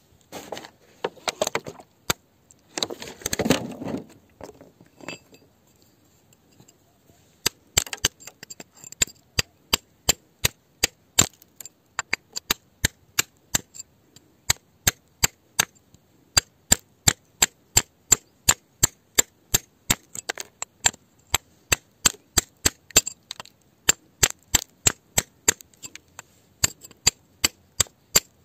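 Pointed digging tool working hard, gravelly soil around a buried stone: scraping and crunching of loose earth in the first few seconds, then a steady run of sharp strikes, about three a second.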